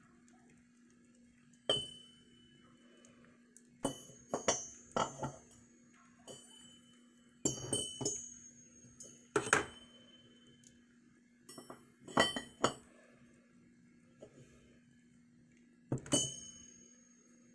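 Hard metal objects clinking and knocking together at irregular intervals, several strikes ringing briefly, over a faint steady hum.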